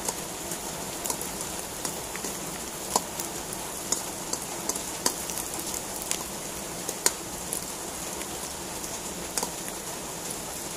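Button mushrooms frying in hot oil in a wok: a steady sizzling hiss with irregular sharp crackles and pops.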